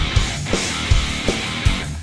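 Thrash metal recording: distorted electric guitars over bass and drums, with heavy kick-drum hits landing several times a second.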